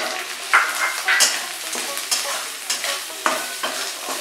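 Spatula scraping and stirring grated coconut with fried carrots, peas and cashews in a metal kadai, repeated scrapes roughly one or two a second over a light sizzle of hot oil and ghee.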